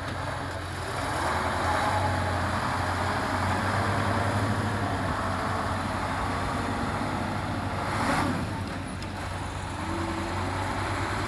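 Engine of a timber truck fitted with a loader crane, running steadily with a constant low hum. It briefly gets louder about eight seconds in.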